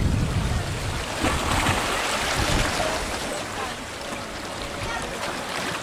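Small sea waves lapping and trickling over shoreline rocks and pebbles in shallow water. Wind buffets the microphone in the first moment.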